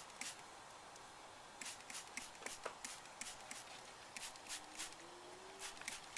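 Faint, irregular clicks and rustles of handling, with a faint rising tone a little past the middle.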